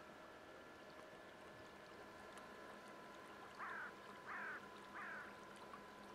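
Faint, steady electric whine of a radio-controlled bait boat's motors as it runs across the water. A little past halfway, a bird calls three times, louder than the motors.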